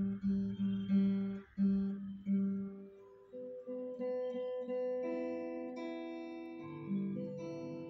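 Background music: acoustic guitar playing, with short repeated plucked notes for the first few seconds, then longer held notes.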